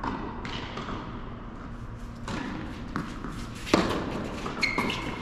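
Tennis ball being struck by rackets and bouncing during a doubles rally on an indoor hard court, several sharp hits echoing in the large hall; the loudest hit comes nearly four seconds in.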